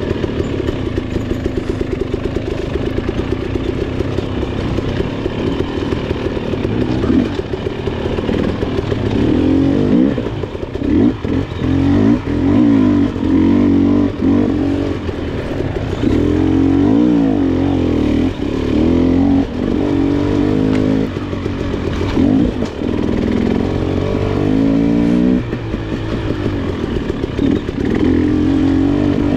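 KTM 300 XC two-stroke dirt bike engine under way on a trail ride, running fairly steadily at first, then revving up and down repeatedly as the throttle is worked, with a few sharp knocks.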